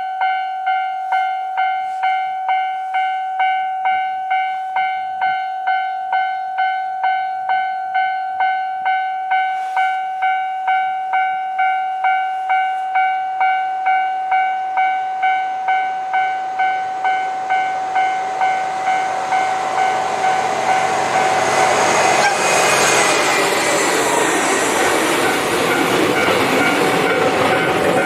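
Japanese railway level-crossing warning bell sounding its steady ding-ding, about two strikes a second. A train then approaches and passes over the crossing from about two-thirds of the way in, its rail noise growing loud and covering the bell.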